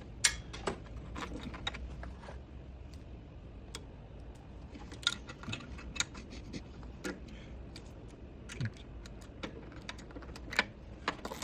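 Irregular light metallic clicks and taps of small hardware (bolt, washer and lock nut) being fiddled into place by hand in a tight spot.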